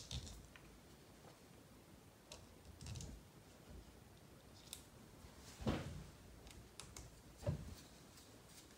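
Faint plastic clicks and taps from a small RC servo's case being handled and pressed together during reassembly, with two louder short knocks, one past halfway and one near the end.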